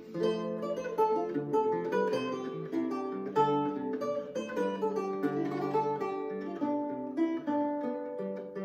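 Renaissance lute played fingerstyle in a galliard: a steady flow of plucked single notes and chords, each note ringing on under the next.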